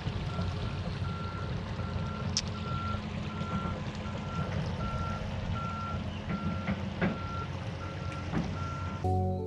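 Excavator's backup alarm giving a steady single-tone beep, a little under twice a second, over the low rumble of its diesel engine running; the beeping stops near the end as music comes in.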